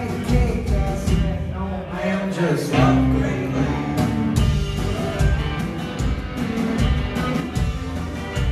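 A rock-and-roll band playing: electric guitar over a drum kit, with a man singing in places.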